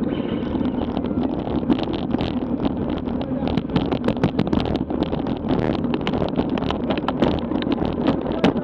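Wind buffeting the microphone of a bike-mounted action camera on a road bike coasting downhill, over a steady rumble of tyres on asphalt. Irregular knocks and rattles from road bumps come more often from about three and a half seconds in.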